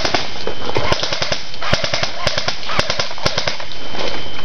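Airsoft rifles firing in rapid bursts of sharp clicks, densest in the first second, over steady noise from running steps through dry leaves.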